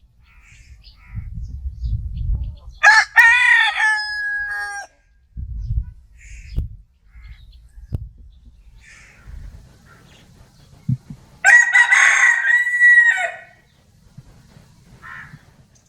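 Rooster crowing twice, about eight seconds apart, each crow about two seconds long and ending in a long held note. Between the crows there are faint short clucks and a low rumble.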